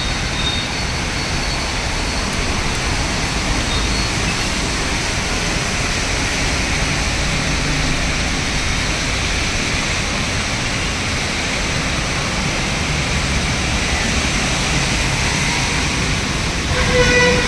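Heavy rain falling on a city road, with vehicles driving through the wet surface: a steady, even hiss. Shortly before the end, a louder sound with several steady pitches comes in.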